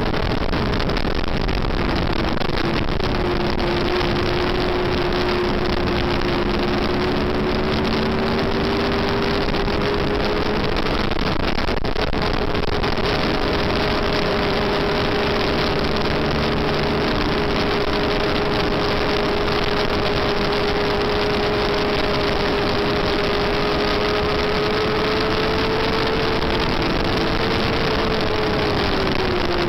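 Onboard sound of a Yamaha FZR400's inline-four engine running hard at a steady high pitch under racing load, with a constant rush of wind over the microphone. The engine note dips briefly about two seconds in and again near the end, as the throttle is eased for corners.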